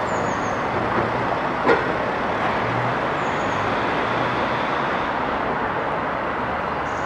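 Steady city street traffic noise, with one sharp knock a little under two seconds in.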